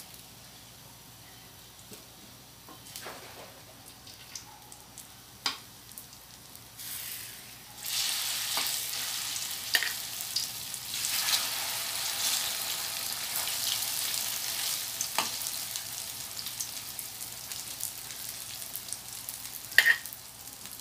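Hot cooking oil in a wok sizzling as raw turon (banana and jackfruit spring rolls) fry. The sizzle rises sharply about eight seconds in, when fresh rolls go into the oil, and stays loud. Metal tongs clink against the pan a few times.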